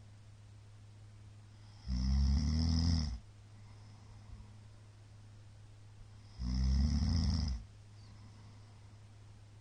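A man snoring heavily after heavy drinking: two loud, low buzzing snores about four and a half seconds apart, each lasting just over a second.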